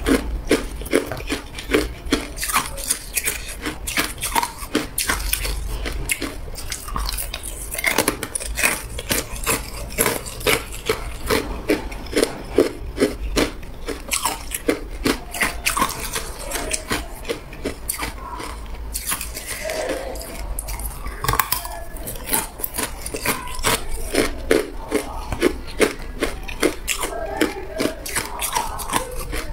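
Clear ice cubes being worked loose from a plastic ice-cube tray by hand: a rapid run of sharp clicks and cracks of ice knocking against the plastic, several a second.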